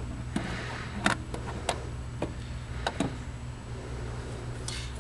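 Handling noise from a handheld clamp meter being set down on a car's strut tower: a few irregular light clicks and taps, then a short rustle near the end, over a low steady hum.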